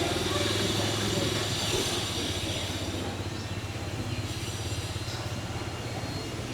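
A motor vehicle's engine running steadily with a low hum that slowly fades.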